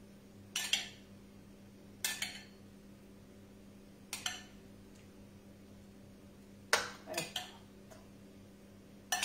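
A spoon scraping and clinking against a ceramic bowl as tomato pulp is scooped out, one short stroke about every two seconds and three in quick succession near the end. A steady low hum runs underneath.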